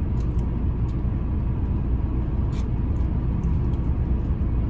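Steady low rumble of a parked car idling with its air conditioning running, heard inside the cabin.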